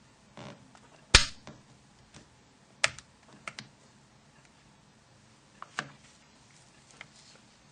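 Sharp plastic clicks and taps from a Nokia 7270 phone's housing snaps being released with a plastic opening tool and the cover being handled. The loudest click comes about a second in, then several lighter clicks follow at uneven intervals.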